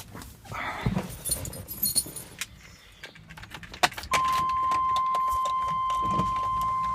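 Keys jangling with clicks and knocks, then about four seconds in a steady high electronic tone starts and holds.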